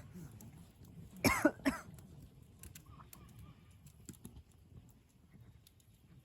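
Campfire crackling with scattered small pops. About a second in, a person's short voiced sound in three quick pulses is the loudest sound.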